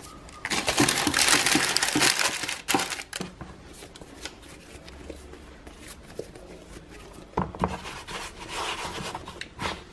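Hands rolling brioche dough into balls and handling the parchment paper lining a loaf tin: loud rustling and crinkling for about two seconds near the start, then quieter handling with a few light knocks, and more rustling near the end.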